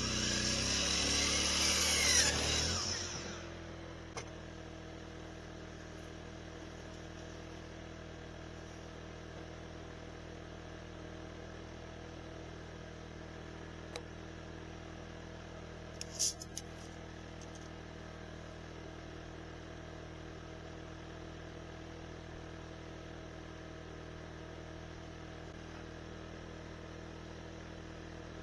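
Portable sawmill running loud for about three seconds, then dropping to a steady idle hum, with a few brief clicks and knocks.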